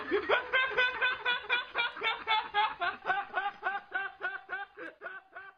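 A young man laughing hard in a long run of short, even pulses, about four a second, that grow steadily quieter and trail off near the end.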